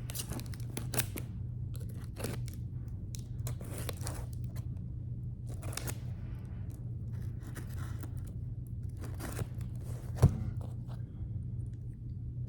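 A box being cut and torn open with a small pocketknife: irregular strokes of the blade slitting tape and cardboard, with tearing and scraping in between. A sharp click about ten seconds in stands out, over a steady low hum.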